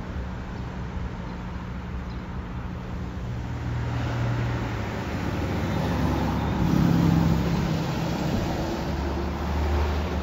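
IC CE school bus engine and road noise heard inside the cabin while driving. The engine's pitch rises and it gets louder over the middle, then it drops back to a lower drone near the end.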